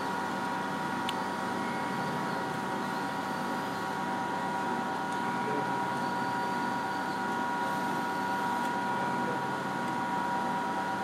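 Mazak Integrex mill-turn lathe running, its live-tool end mill milling a part held in the chuck: a steady machine whine with several steady high tones over an even noise.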